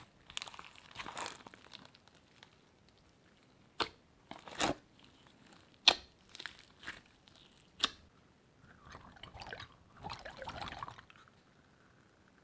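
Slime being squished and mixed by hand: irregular bursts of crackly, crunchy squishing, broken by several sharp pops, the loudest about six seconds in, and a longer crackly squelch near the end.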